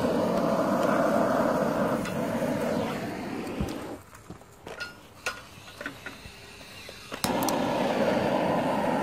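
Blowtorch flame running steadily as it melts aluminium drink cans. It dies away about four seconds in, leaving a few light clicks, then comes back on abruptly about seven seconds in.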